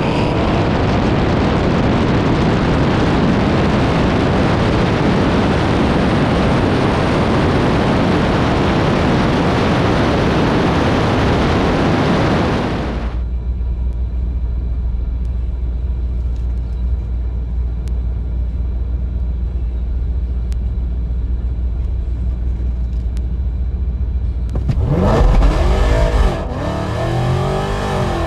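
ProCharged (centrifugal-supercharged) 5.7 Hemi V8 at full throttle on a quarter-mile drag pass, loud and steady for about thirteen seconds, then cutting off abruptly as the throttle is lifted, leaving a low steady engine hum. Near the end, engine notes rise and fall.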